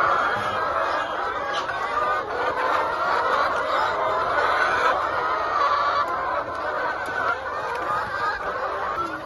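A large flock of chickens clucking and calling together in a dense, continuous chorus of overlapping voices.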